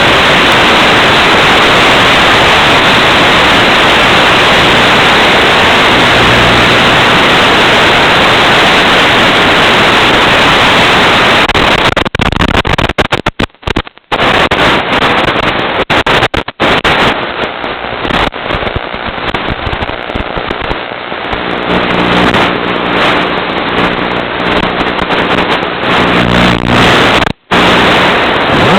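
Static from an analog FPV video receiver's audio channel: a loud steady hiss that breaks up after about twelve seconds into crackling and brief dropouts, with a low hum in the last several seconds.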